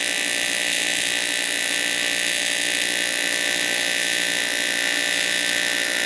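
AC TIG welding arc on 16-gauge aluminum tube at about 75 amps, giving a steady, even buzz.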